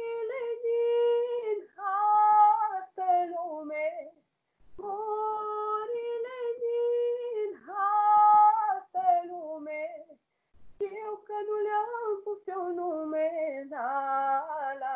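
A young woman singing a Romanian folk song on her own, with no instrument heard. She holds long notes in phrases, with two short breaks for breath about four and ten seconds in. The sound comes over an online video call.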